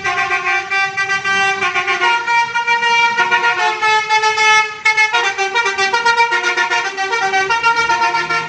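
Bus telolet musical air horn playing a loud tune of changing notes, stepping quickly from one pitch to the next.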